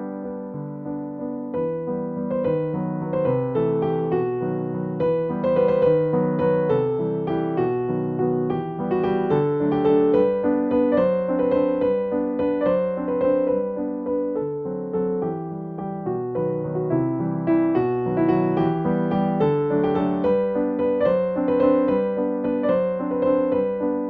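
Background music: a gentle piano melody.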